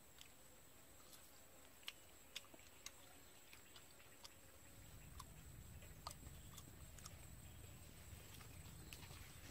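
Quiet eating sounds from a person eating egg by hand: scattered faint clicks and smacks over a thin, steady high-pitched hiss. A low rumble sets in about halfway through.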